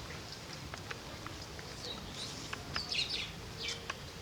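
Birds chirping: short high chirps, thickest from about two seconds in, over a steady low background noise with a few faint clicks.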